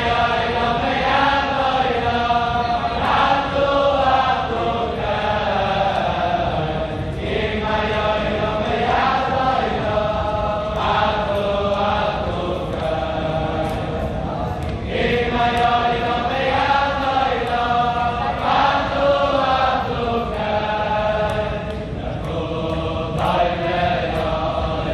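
A large crowd of men singing a Hasidic melody together in unison, a slow continuous tune.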